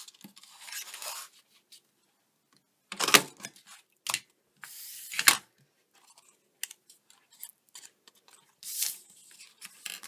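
Hand-held decorative border punch crunching through a strip of cardstock, a few sharp clunks with paper sliding and rustling between them as the strip is moved along the punch.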